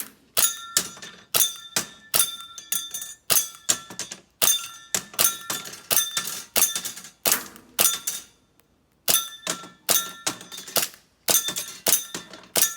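Airsoft replica firing in quick strings of shots at swinging targets, each sharp crack followed by a metallic ring from the hit target. The shooting pauses briefly a little past the middle, then resumes.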